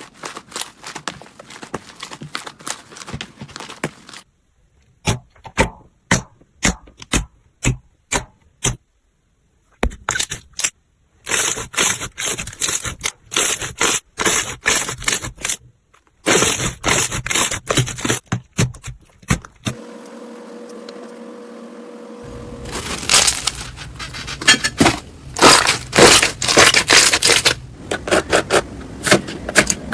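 Slime being handled in a string of short clips: quick runs of sharp crackles, clicks and pops as it is pressed and poked, cut apart by brief silences. For about two seconds in the middle there is a steadier hum with a faint held tone instead.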